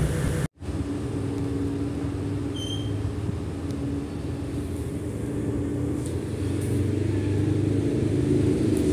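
Steady low hum of indoor shopping-hall background noise, with a short high electronic beep about two and a half seconds in. The sound drops out briefly about half a second in.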